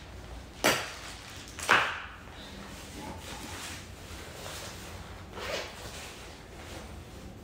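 Plumbing parts being handled on a tiled floor: two sharp clacks about a second apart near the start, then a softer rustle of a plastic parts bag about five seconds in.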